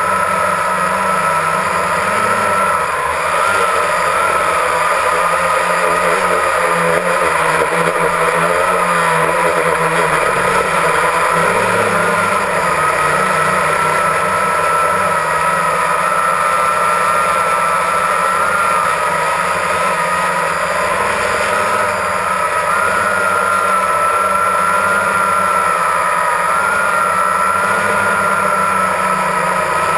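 Multirotor drone's electric motors and propellers whining steadily, heard from its onboard camera, the pitch wavering slightly up and down as the craft holds and turns.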